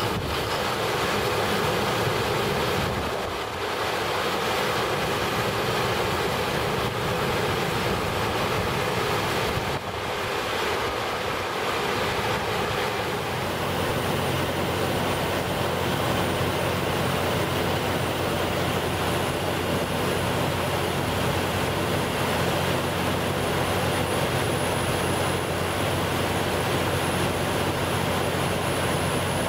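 Olympian 150 kW diesel generator set running steadily just after start-up. About halfway through the low hum becomes more even, and a faint high whine comes in and stays.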